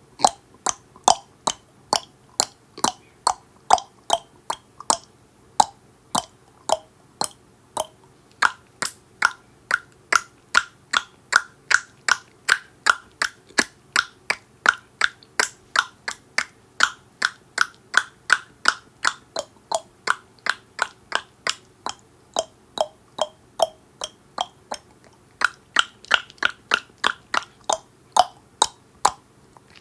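A person clicking their tongue over and over, about two sharp clicks a second, the pitch of the click shifting up and down as the mouth changes shape.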